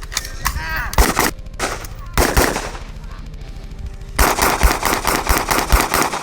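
Firearms shooting at a range: a few separate shots in the first couple of seconds, then a fast string of rapid shots from about four seconds in.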